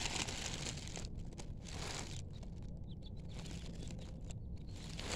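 Wind buffeting the microphone: a steady low rumble with gusts of hiss that rise and fall every second or so.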